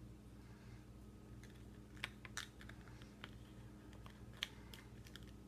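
Scattered small plastic clicks and snaps from a yellow Kinder Surprise toy capsule being handled and pried open by hand, starting about two seconds in. The sharpest click comes near the end, over a faint low hum.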